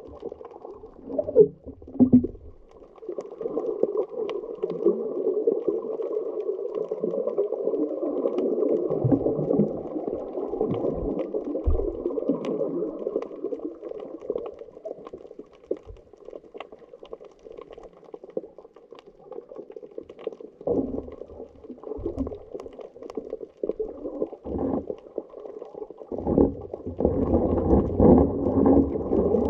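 Muffled underwater noise: a dull, steady rush of water with a few low knocks, growing louder near the end.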